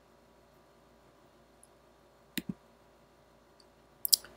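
Computer mouse button clicking: a quick double click about two and a half seconds in and another pair near the end, against near silence.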